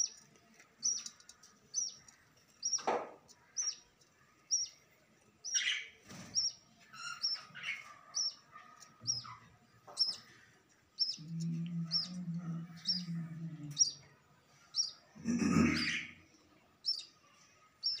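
Budgerigars chirping: a short, high peep repeats about once a second, with a few louder, longer calls over it. A low hum runs for a few seconds past the middle.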